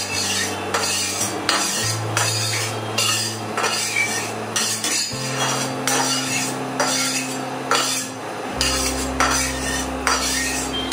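A metal spatula scrapes and knocks against a kadai, spreading a little oil over the hot pan in repeated short strokes. Background music with steady low notes plays underneath.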